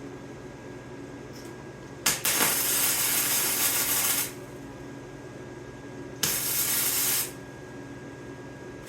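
Small flux-core wire-feed welder arc crackling and hissing in two bursts, the first about two seconds long and the second about one second, as tack welds go onto a thin sheet-metal patch panel. A steady low hum runs underneath.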